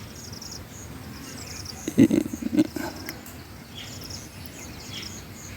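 Crickets chirping in steady high pulsed trills, with a brief louder low sound about two seconds in.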